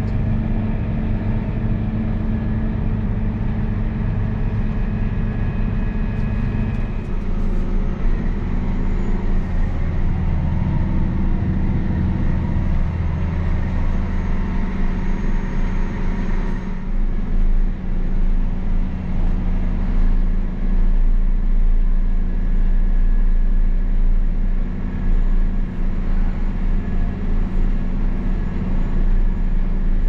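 Versatile 405 tractor's diesel engine running steadily, heard from inside the cab as the tractor drives across the lot towing a disc. The engine note shifts a little lower about seven seconds in.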